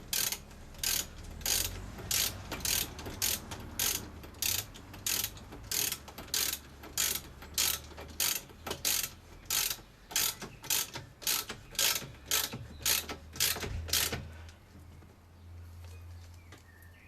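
Hand ratchet wrench clicking in steady back-and-forth strokes, about two clicks a second, as a suspension bolt is run in and tightened; the clicking stops a few seconds before the end.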